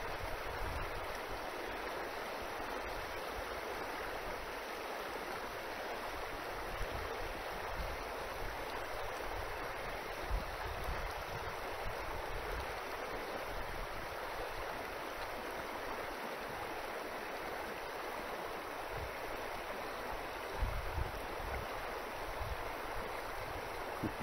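Shallow, rocky upland beck running over stones and small rapids: a steady rush of flowing water.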